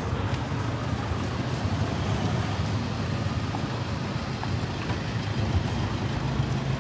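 Street traffic: motor vehicle engines running with a steady low hum.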